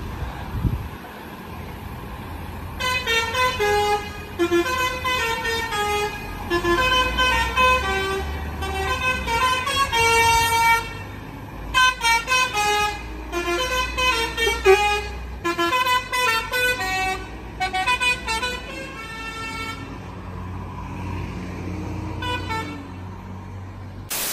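Multi-tone 'telolet' horn on a lorry playing a stepped, tune-like sequence of notes in short phrases, starting about three seconds in and stopping near twenty seconds, over a low engine rumble.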